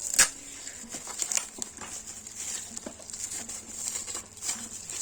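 Packaging being handled: rustling and crinkling with scattered sharp clicks, the loudest a click just after the start.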